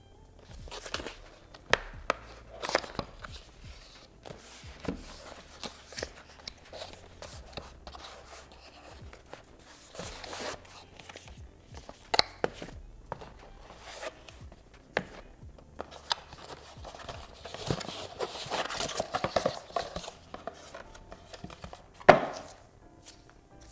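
Cardboard box and packaging being handled and opened: scattered sharp clicks and knocks of box parts and contents, a longer stretch of rustling and tearing of packaging in the second half, and one loud sharp knock near the end.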